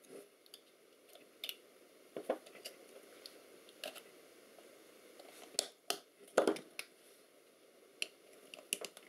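Scattered small clicks and scrapes of a metal pick tool prying at the dial ring and screws of a metal sensor housing, with a couple of sharper knocks a little past the middle.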